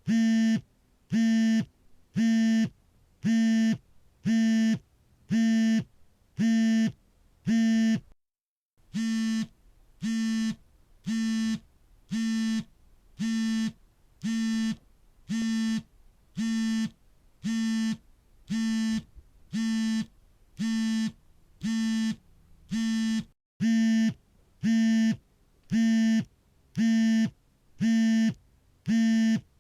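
Smartphone vibrating for an incoming call: short, even buzzes of the vibration motor, about one a second, each a steady low hum. The buzzing breaks off briefly twice, picking up a little quieter after the first break and louder again after the second.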